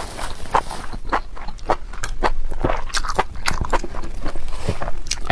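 A person chewing spicy enoki mushrooms, a quick irregular run of many short clicks and squelches.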